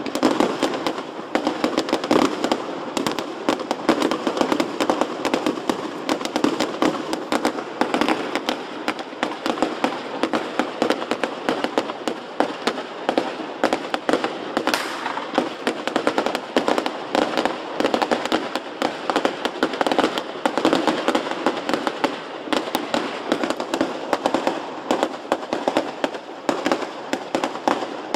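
Fireworks display going off in a dense, unbroken barrage of pops and bangs, with no pause.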